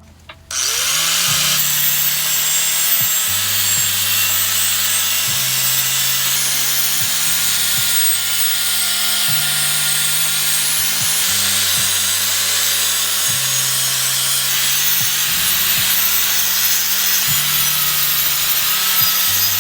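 A handheld power tool spins up with a short rising whine and then runs steadily, abrading a surface with a loud even hiss, before cutting off suddenly near the end.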